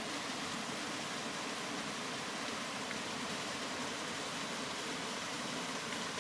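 Steady, continuous rain falling: an even hiss with no changes or pauses.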